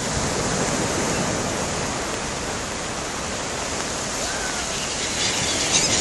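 Small sea waves breaking and washing up a sandy beach: a steady hiss of surf that swells about a second in, with a brief louder surge near the end.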